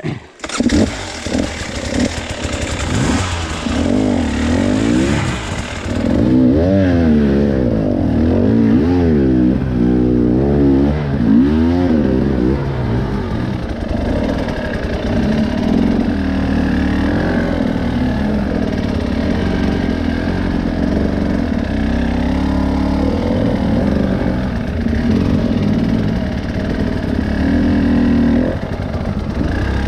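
Trail motorcycle engine revving hard and unevenly, its pitch swinging up and down repeatedly as it climbs, then holding fairly steady at high revs before easing off near the end.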